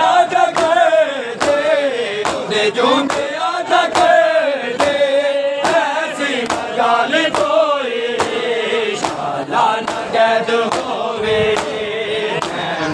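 Crowd of men chanting a Punjabi noha together, with hand slaps of chest-beating mourning (matam) landing in a steady beat about twice a second.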